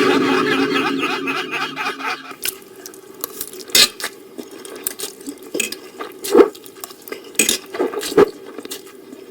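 Eating utensils clinking and scraping in a bowl of noodles: a dense stirring clatter that fades over the first couple of seconds, then scattered sharp clicks.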